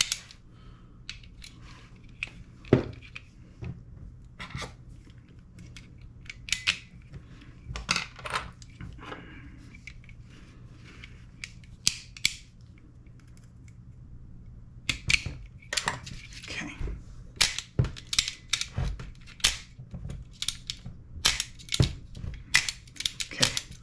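Irregular sharp metallic clicks of a Modify-Tech two-stage trigger box in a Tokyo Marui MWS gas blowback rifle being worked by hand: trigger pulls, hammer releases and selector clicks during a function check of fire modes. The clicks come sparsely at first and more densely in the last third.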